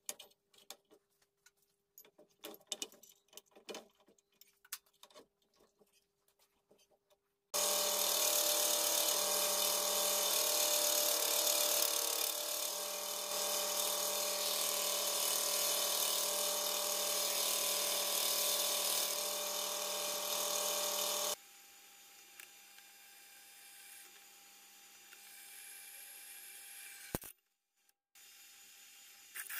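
Light clicks and taps as an abrasive belt is fitted to a belt grinder. Then the belt grinder starts and runs loudly with a high hiss for about fourteen seconds, followed by a quieter steady hum. Near the end, after a sudden cut, a drill press runs, boring into the steel saw-blade blank.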